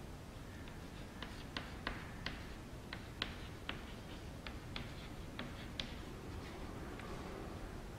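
Chalk writing on a chalkboard: a string of sharp, irregular taps, about two a second, as the chalk strikes the board to form letters.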